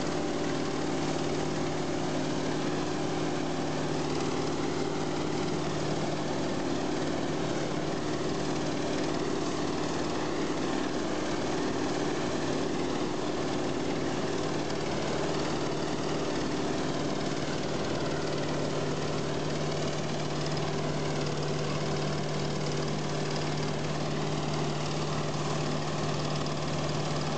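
Self-propelled forage harvester running steadily while chopping maize: an unchanging machine drone with a strong low hum over a constant wide rushing noise.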